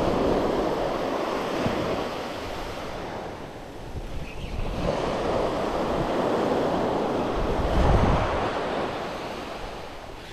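Small surf breaking and washing up on a sandy beach, swelling and easing off twice, with wind buffeting the microphone.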